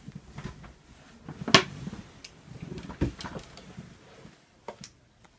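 A wooden box being handled and its hinged lid opened: a sharp wooden knock about a second and a half in, another knock near three seconds, with lighter clicks and handling noise between.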